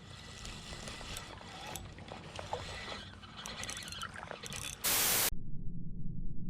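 Shimano Nasci spinning reel's drag clicking and scraping, with water splashing, as a hooked trout pulls. About five seconds in, a short loud burst of static-like hiss cuts in, leaving only a low hum.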